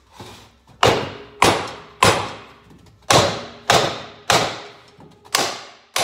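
Rubber mallet striking an aluminium motorcycle crankcase to break the two case halves apart. Eight sharp blows come in groups of three, about two a second, each with a short fading ring.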